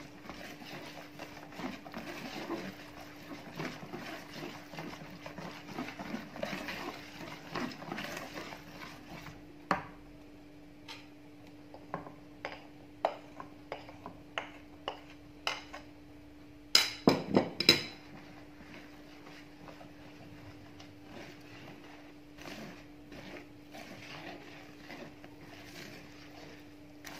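Wire whisk beating a thick batter in a plastic bowl, a steady scraping churn for the first ten seconds or so. Then a metal spoon clinks a series of times as flour is scooped from a plate and knocked into the bowl, loudest in a quick run of knocks about two-thirds of the way through, followed by softer stirring. A steady low hum runs underneath.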